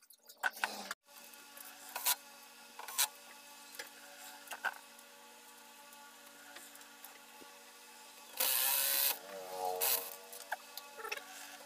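Clicks and knocks of hand tools and parts being handled on a disassembled LCD TV chassis, over a steady electrical hum. About three-quarters of the way through comes a short hissing burst, followed by a brief wavering tone.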